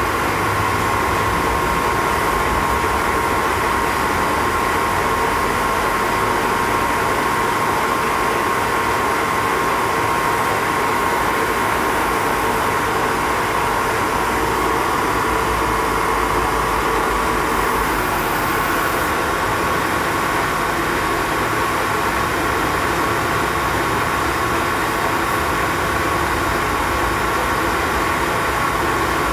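Lagun FTV-2 CNC mill running: a steady machine hum with a whine over a noisy bed. The tone changes about two-thirds of the way through.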